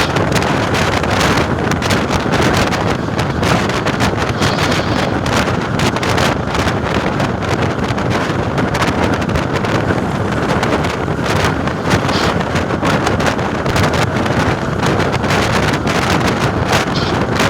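Volvo B10M bus's horizontal six-cylinder diesel engine running steadily with a deep rumble, with wind buffeting the microphone.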